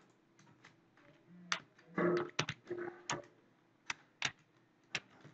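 Typing on a computer keyboard: a quick run of keystrokes about two seconds in, then a few single key presses near the end.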